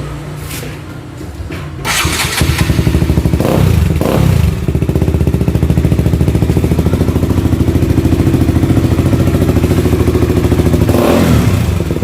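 KTM RC200 single-cylinder engine breathing through an Akrapovic muffler with its dB killer fitted: it starts about two seconds in, is revved twice briefly, then idles with a steady pulse, with one more throttle blip near the end. The note is quiet with the silencer in.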